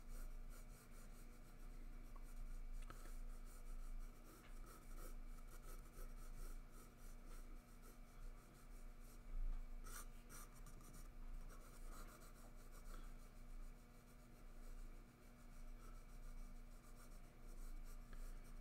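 Faint scratching of a graphite pencil sketching on sketchpad paper, in short, irregular strokes.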